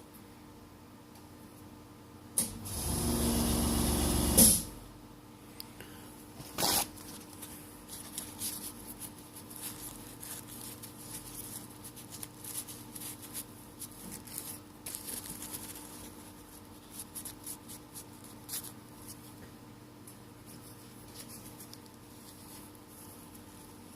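Small clicks and taps of hand work on a phone's camera parts. About two seconds in, a loud rushing noise lasts about two seconds and ends in a sharp click, and another sharp click follows about two seconds later.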